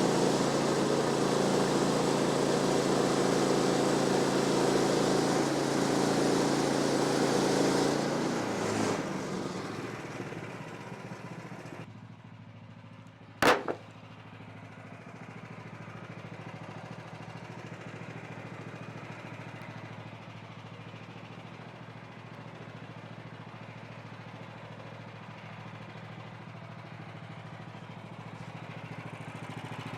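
Portable band sawmill cutting through a post oak log, its engine running steadily under load with the blade's hiss. About eight seconds in, the cut ends and the sound fades to a quieter steady engine run. A single sharp click comes about halfway through.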